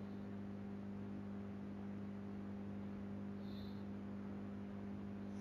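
Steady low electrical hum with a faint hiss underneath: background hum on the call's audio.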